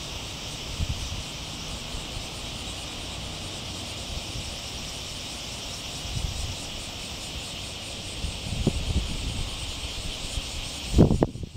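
A steady, high chorus of insects, with low wind rumble on the microphone and a louder gust near the end.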